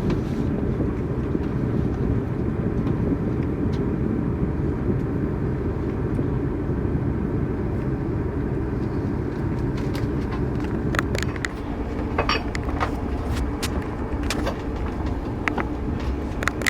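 TGV Lyria train in motion: a steady low rumble, with scattered light clicks and rattles through the second half.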